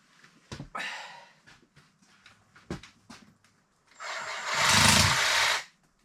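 A few clunks of handling, then a power saw runs in one short burst of about a second and a half near the end, starting up to cut through the goat's leg bone.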